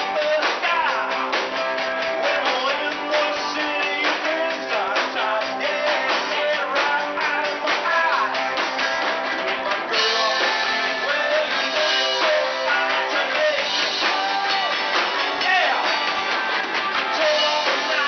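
Live rock band playing: electric guitars, bass and drums with a singer's vocal over them. The sound turns brighter in the highs about halfway through.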